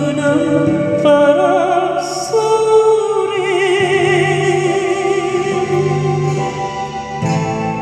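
Singing voice over acoustic guitar accompaniment, ending a line on one long held note with vibrato that stops about seven seconds in.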